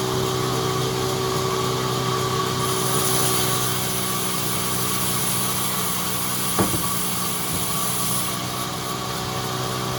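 Sawmill machinery running steadily with a constant engine-like hum. A high hiss comes in about three seconds in and stops just after eight seconds, and there is one sharp knock at about six and a half seconds.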